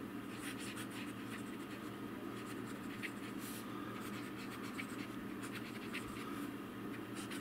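Platinum Balance fountain pen's medium nib scratching across paper while cursive words are written: a run of short, light pen strokes.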